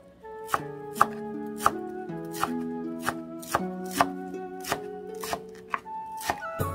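A large knife chopping fresh green herbs on a wooden cutting board, sharp knocks at about two or three chops a second. Instrumental background music with held notes plays underneath.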